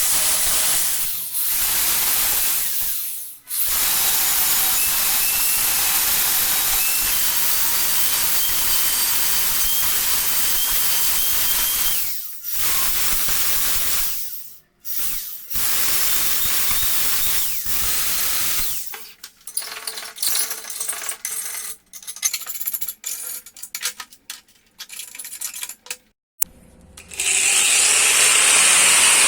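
Workshop work in several cut-together clips: a steady high hiss from a tool at work, then a run of short, irregular metallic clicks and taps, and the hiss again near the end.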